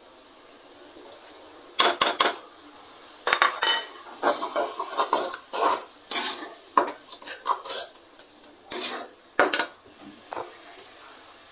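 A steel ladle scraping and knocking against a steel kadai in irregular strokes as tomato-and-spice masala is stirred while it fries, over a faint steady sizzle. The stirring starts about two seconds in.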